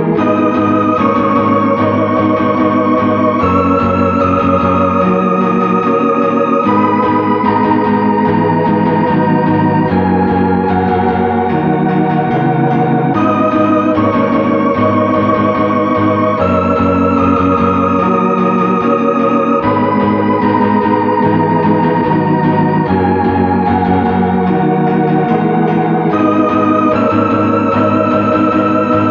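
Dungeon synth music: slow, held organ-like synthesizer chords that move to new chords every second or two, with a slight vibrato on the upper notes.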